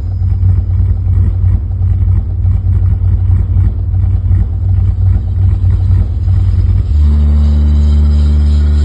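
Heavy, throbbing deep bass from a DJ sound-check bass test played through a dual-front bass speaker cabinet. About seven seconds in it turns into one steady, held low bass tone.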